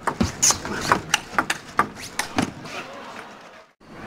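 Table tennis rally: the ball clicking sharply in quick succession off the bats and the table, a dozen or so hits over about two and a half seconds. Then a short lull, with crowd noise beginning to swell at the very end.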